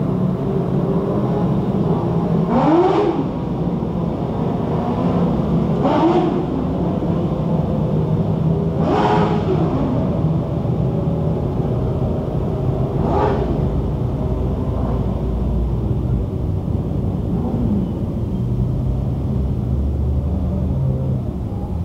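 Dwarf race cars' motorcycle engines running on a dirt oval: a steady engine rumble, with single cars revving up and sweeping past about five times, a few seconds apart.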